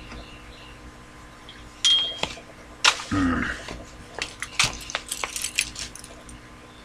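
Irregular clinks, taps and rattles of small hard objects being handled, clustered between about two and six seconds in, with a short high tone near the start of the cluster.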